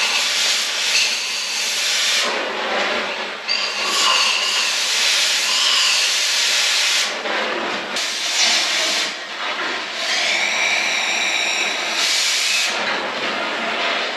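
Oxy-fuel cutting torch hissing steadily as it cuts through old steel bumper tubing. The top of the hiss drops out briefly several times, and a whistling tone sounds over it twice.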